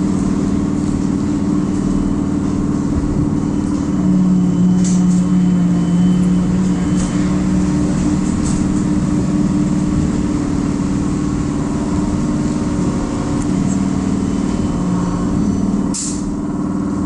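Trolleybus running, heard from inside the passenger cabin: a steady electric hum with tyre noise on a wet road, and a few short clicks and knocks, the sharpest about sixteen seconds in.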